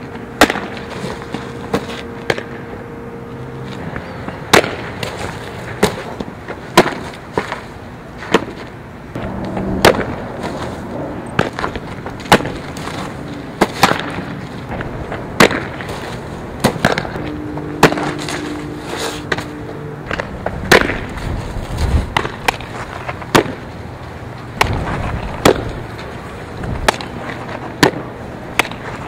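Softball popping into a leather catcher's mitt and fielders' gloves again and again, sharp pops about one to two seconds apart over steady outdoor background noise.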